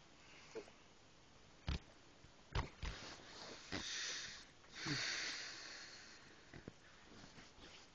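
Soft, close sniffing and snuffling breaths, the two longest about four and five seconds in, with a few faint knocks between them.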